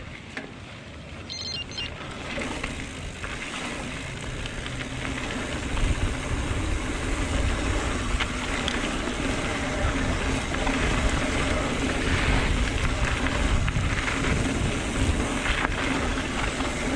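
Wind buffeting a camera microphone and knobby tyres rolling over a dirt trail as a mountain bike rides down, a rushing rumble that grows louder over the first few seconds as the bike gathers speed.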